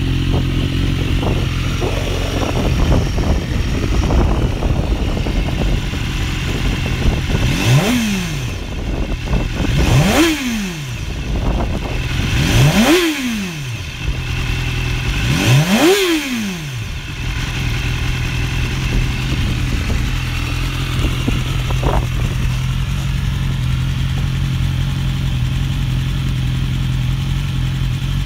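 2014 BMW S1000RR's inline-four engine through a GPR slip-on exhaust, idling, then revved four times in quick throttle blips that each rise and fall, before settling back to idle.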